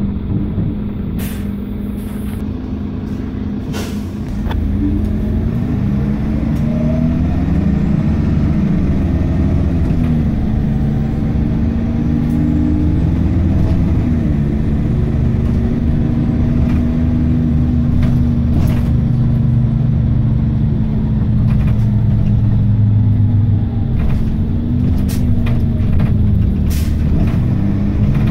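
Optare Tempo single-deck bus heard from inside the passenger saloon: its diesel engine is working under load, getting louder as the bus speeds up about four and a half seconds in, with the engine note rising and falling several times. Occasional sharp clicks and knocks come from the bus body.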